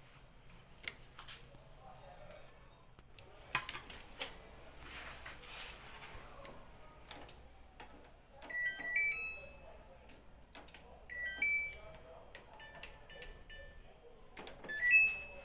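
Samsung washer dryer combo's control panel beeping: three short sequences of stepped, rising electronic tones, about 8 s in, 11 s in and near the end, the last the loudest. Scattered clicks and handling noises come in between.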